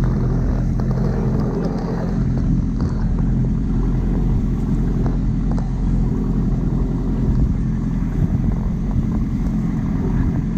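Wooden boat's engine running steadily at cruising speed, a low even drone, with water rushing and splashing along the hull.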